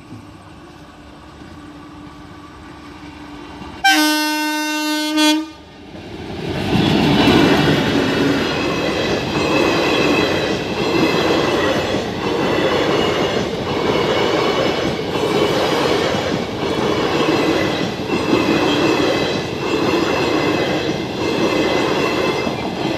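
Passenger train approaching with a low rumble that builds, one horn blast about four seconds in lasting over a second, then the coaches passing close at speed with a loud steady rumble and a rhythmic clickety-clack of the wheels over the rail joints.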